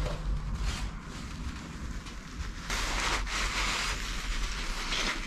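Paper towel rustling and crumpling in gloved hands as the removed timing chain tensioner is wiped, louder from a little past halfway.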